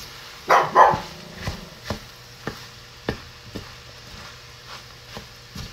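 A dog barks twice in quick succession about half a second in. Scattered sharp clicks of a utensil against a pan follow as the rice is stirred, over a low steady hum.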